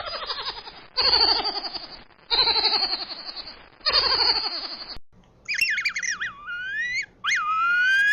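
Mouse squeaks. First come four falling, raspy squeaky calls about a second and a half apart. Then, about five seconds in, a cleaner run of high squeaks that swoop down and up and rise in pitch.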